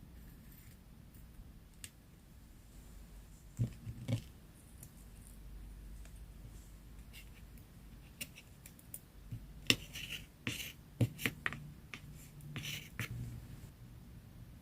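Paper and craft materials being handled for a collage: two soft taps about four seconds in, then a quick run of clicks and paper rustles from about ten to thirteen seconds in.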